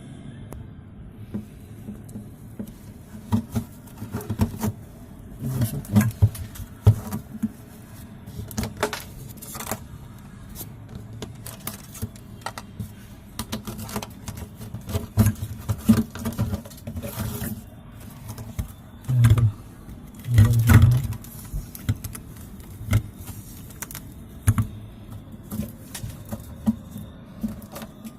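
Irregular clicks, taps and knocks of hands and tools working on the opened refrigerator's fan compartment, with two heavier thumps a little past the middle.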